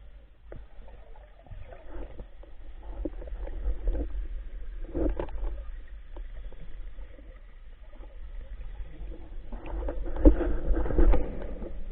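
Muffled water sloshing and gurgling over a low rumble, with irregular louder surges about five seconds in and again near the end.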